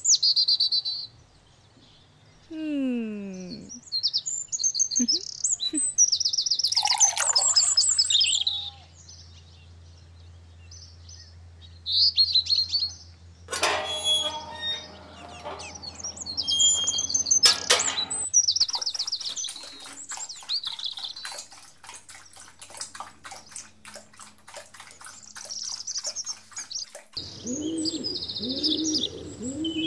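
Birds chirping and calling, with many short high calls throughout. A long run of rapid ticks comes through the middle, and low cooing calls come near the end.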